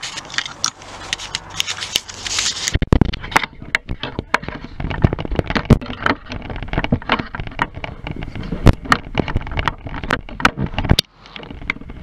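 Irregular crackles, scrapes and knocks from someone moving through a cramped, debris-strewn room with the camera in hand, with heavier thumps about three seconds in. It goes briefly quiet near the end.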